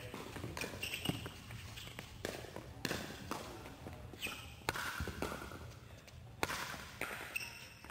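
Pickleball paddles striking the plastic ball during a doubles rally: a series of sharp pops at irregular intervals, ringing in a large indoor court hall.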